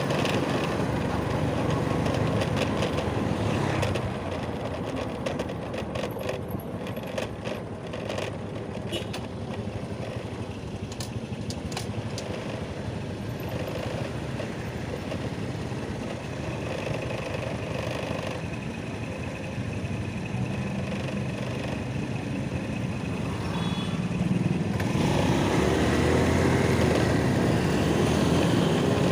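Motor vehicle running with road noise, louder for the first few seconds, quieter through the middle, and louder again near the end.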